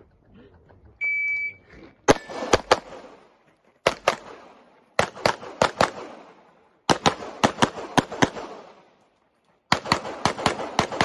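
A shot timer gives one start beep about a second in. A pistol then fires rapid strings of shots in quick groups of two to eight, with pauses of about a second between groups.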